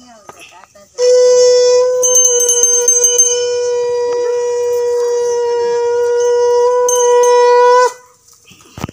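A conch shell (shankha) blown in one long, steady blast of about seven seconds for the puja, starting about a second in. A small hand bell rings briefly alongside it.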